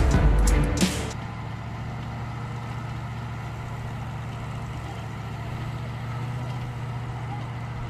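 Loud music cuts off about a second in, leaving a bulldozer's diesel engine running steadily as a low, even hum.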